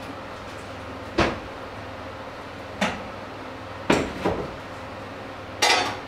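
Kitchenware being handled: a pot lid, pots and a plastic bowl knocking and clattering, five short sharp knocks with a longer clatter near the end.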